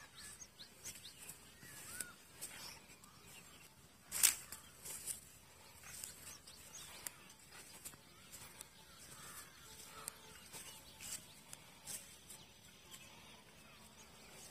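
Quiet rural field ambience with scattered faint bird chirps, and a few short crackles and rustles, the loudest about four seconds in.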